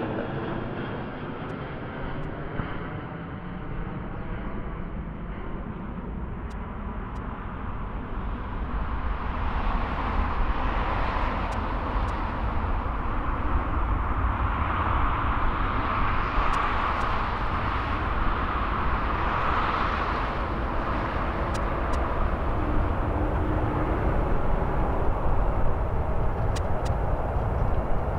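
Jet airliner noise: a low rumble that swells into a rushing roar about a third of the way in, loudest around the middle and staying loud to the end.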